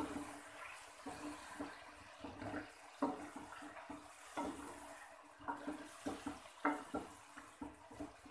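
Chicken, potatoes and spices frying in oil in a handi (cooking pot): a steady sizzle, with a spoon scraping and knocking against the pot at irregular moments as the masala is stirred. The chilli in it is starting to catch and burn.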